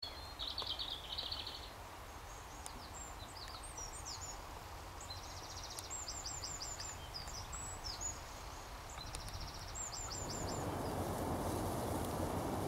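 Songbird singing a varied song of buzzy trills and runs of quick high notes over a low wind rumble; near the end, wind noise on the microphone grows louder.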